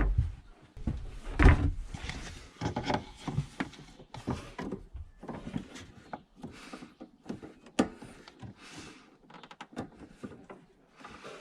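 Irregular knocks, thumps and clicks of things being handled while a container is fetched to catch draining water, with a heavy thump about a second and a half in and a sharp click near eight seconds.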